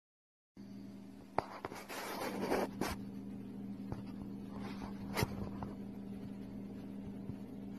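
Desert viper shifting and coiling in loose sand, its rough keeled scales giving a dry rasping scrape that is strongest about two to three seconds in, with a few sharp clicks. A steady low hum runs underneath.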